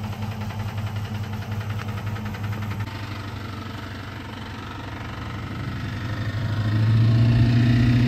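2008 Dodge Charger R/T's 5.7-litre Hemi V8 idling with an even pulsing beat, louder from about seven seconds in at the rear of the car. The engine is skipping, which the mechanic blames on a dropped valve seat after overheating.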